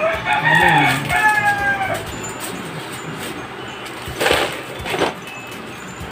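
A rooster crowing once, a long pitched call lasting about two seconds, followed by two short rustles.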